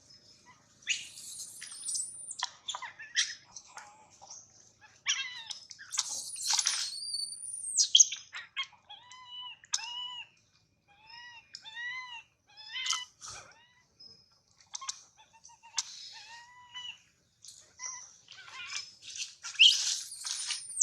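A baby monkey crying: bouts of shrill, high-pitched screams, with a string of short rising-and-falling cries in the middle.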